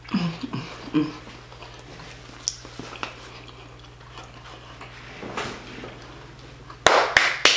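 Soft mouth and eating sounds over a faint steady hum, then, a little before the end, a run of quick hand claps at about four a second.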